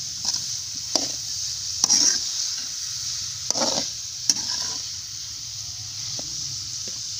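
Potatoes and cauliflower sizzling in hot masala in a metal karahi while a slotted metal spoon stirs and scrapes through them. A steady frying hiss, with a few sharp clinks of the spoon against the pan in the first half.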